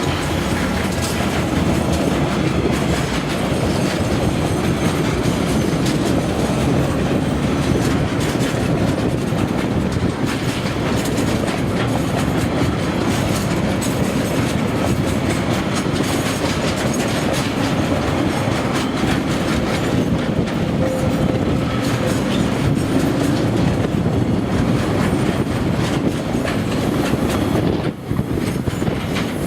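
Freight train rolling past steadily, its wheels clacking over the rail joints.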